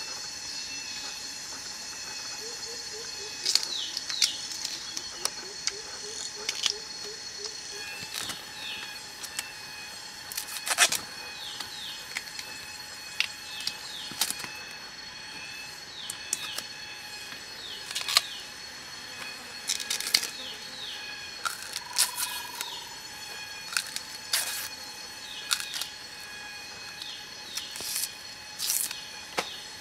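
Irregular sharp cracks and snaps of thin bamboo strips being split and broken by hand, some followed by short squeaks, over a steady high-pitched drone.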